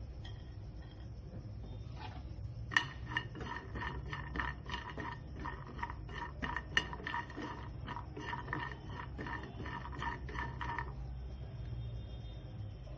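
Spatula stirring walnut halves in a non-stick frying pan: a run of quick clinks, taps and scrapes, with a couple of sharper knocks. It starts about three seconds in and stops a couple of seconds before the end, over a steady low hum.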